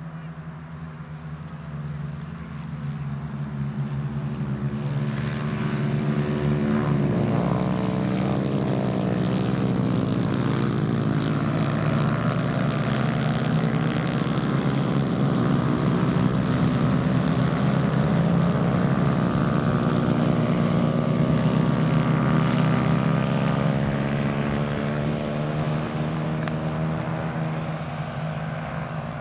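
Several small racing-kart engines running together as the pack approaches, passes and draws away: overlapping engine notes rise and fall with the revs. The sound swells over the first few seconds and eases off near the end.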